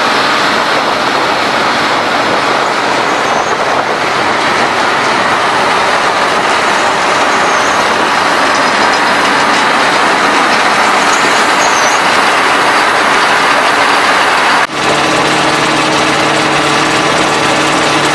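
1988 HayBuster H1100 tub grinder running off a tractor's 1000 PTO: a loud, steady mechanical noise of engine and machinery. Near the end it breaks off for an instant and gives way to a steadier, lower engine drone.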